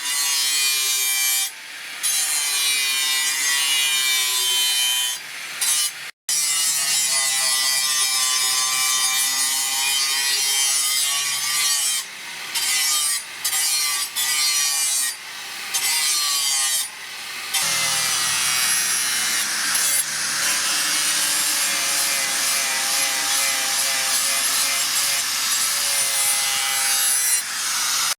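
A power grinder working steel (the circular saw blade being ground or cut to shape): a continuous abrasive hiss, its motor pitch drifting up and down under load, stopping briefly several times as the tool is lifted.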